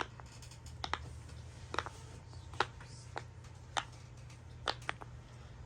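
Silicone pop-it fidget toy bubbles being pressed through one at a time, giving short, faint pops at irregular intervals, about eight of them. A low steady hum runs underneath.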